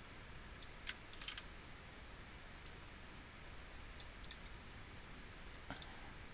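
A handful of sparse, sharp clicks from a computer mouse and keyboard, over a faint steady room hiss.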